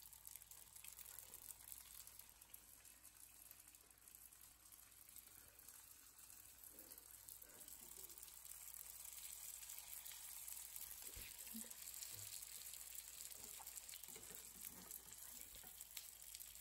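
Spring rolls frying in hot oil in a frying pan: a steady, faint sizzling hiss, the sign that the oil is hot enough.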